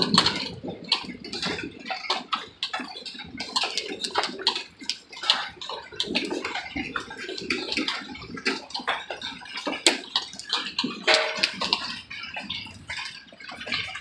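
Hail falling: a dense, irregular patter of many sharp ticks as hailstones strike the ground and nearby surfaces.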